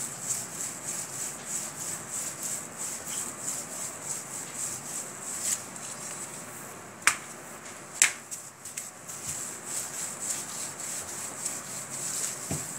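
Rolling pin worked back and forth over a sheet of stiff dough on a counter slab, a soft rhythmic rubbing of a few strokes a second. The strokes let up for a few seconds in the middle, where two sharp clicks come about a second apart.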